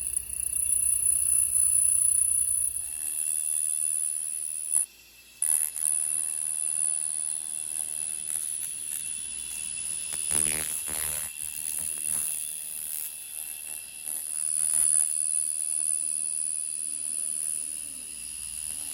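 P-Laser QF-1000 pulsed laser cleaning metal aircraft parts: a steady high-pitched whine with a fainter lower tone, cutting out briefly about five seconds in. A low hum sounds for the first few seconds.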